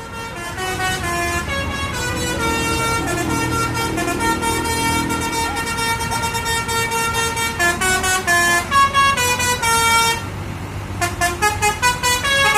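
Basuri telolet multi-tone horn playing a melody of held notes that step up and down in pitch; after a short drop about ten seconds in it resumes with a quicker run of short notes.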